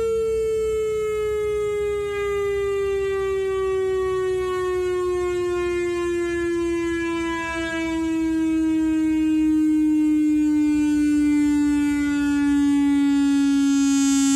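Whelen WS/WPS-3000 electronic outdoor warning siren sounding one long tone that slowly falls in pitch.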